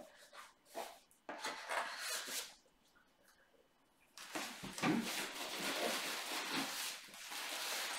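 Light clicks and rustles of a small gift box being handled, then, from about four seconds in, steady rustling of paper wrapping and packing as a wrapped item is pulled out of a cardboard box.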